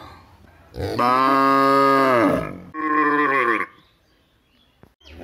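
Cows mooing: one long, low moo about a second in, then a shorter, higher-pitched moo right after it.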